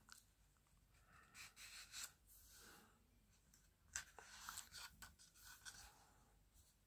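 Faint rustling of book pages being turned and a hand sliding over the paper: a few soft scrapes, with a sharper tick about four seconds in.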